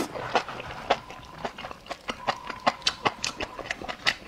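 Close-miked chewing of a mouthful of food: a run of short, wet smacking clicks, about four or five a second.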